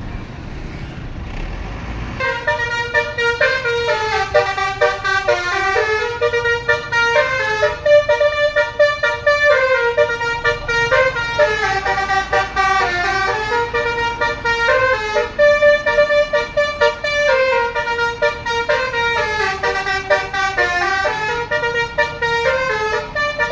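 Basuri musical bus horn (telolet horn) playing a loud tune of stepped notes, several tones at once. It starts about two seconds in. The melody steps down and back up, and the phrase repeats about every eight seconds.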